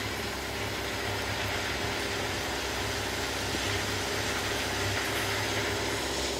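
Rail excavator's diesel engine running steadily, with a broad hiss over it that eases off at the end.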